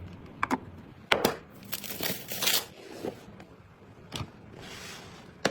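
PC parts being handled during a build: a handful of separate sharp clicks and knocks, with a short rustle of packaging or handling noise between them.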